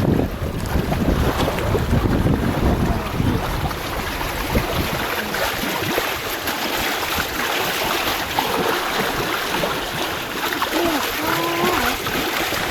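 Wind blowing over the microphone and water rushing and splashing against a small sailboat's hull on a wavy sea, a steady noisy wash.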